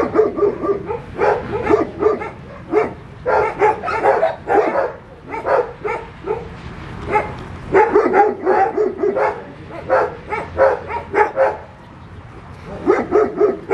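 Young puppies yelping and whimpering, many short high-pitched cries coming in quick clusters with brief pauses between.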